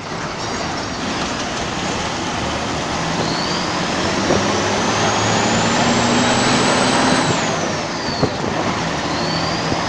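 Old Tata bus's turbo diesel engine pulling, with a clear turbo whistle over the engine's steady drone. The thin high whine climbs steadily for about four seconds, drops away quickly about two-thirds of the way through, then starts climbing again near the end.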